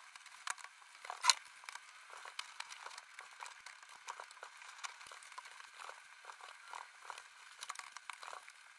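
Bedding rustling as a bed is made: soft, scattered rustles and pats of the duvet and pillows being handled and set in place, with one louder stroke about a second in.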